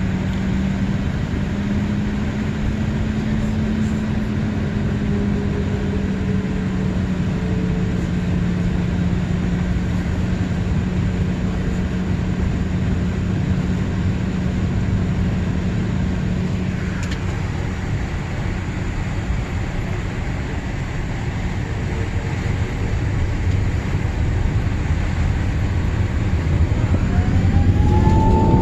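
Airbus A380 jet engines running: a steady, dense rumble with a low hum throughout.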